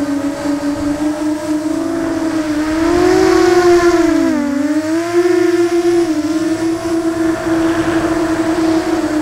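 A QAV 250 quadcopter's DYS 2300kv brushless motors and propellers whining in flight, heard from the on-board camera. The pitch climbs about three seconds in, dips sharply around four and a half seconds, then steadies again as the throttle changes.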